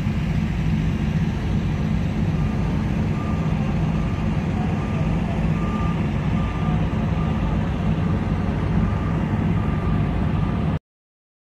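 Heavy diesel vehicles running with a steady low rumble, while a vehicle's reversing beeper sounds in short regular beeps a little under a second apart from about two seconds in. The sound cuts off suddenly near the end.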